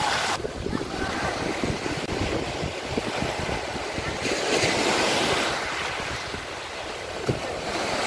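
Black Sea waves breaking and washing on the shore, with wind buffeting the microphone. A wave washes in with a louder hiss about four to five seconds in.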